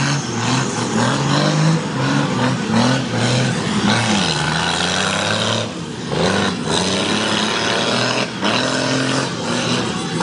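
Mega truck's Cummins diesel engine revving hard, its pitch rising and falling again and again under load.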